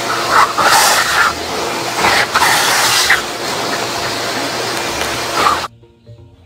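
Handheld leaf blower running with a steady rush of air, flaring louder a few times in the first couple of seconds as a dog bites at the air stream from its nozzle; it cuts off suddenly near the end.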